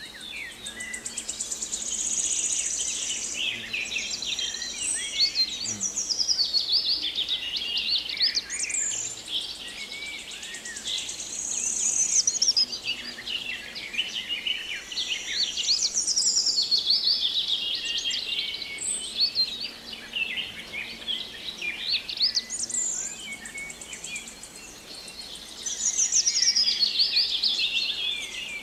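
Several songbirds singing at once, a dense chorus of quick rising and falling chirps and warbles. A high buzzing trill comes and goes a few times.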